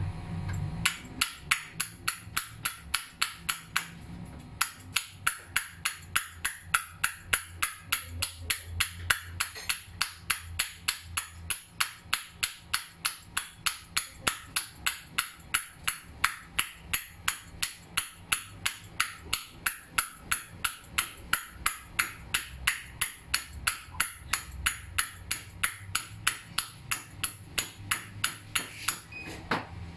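Motorcycle engine valve being hand-lapped into its seat in the cylinder head with coarse lapping compound: a quick, even run of metallic taps, about three a second, as the valve is turned and knocked down onto the seat over and over, with a short pause a few seconds in.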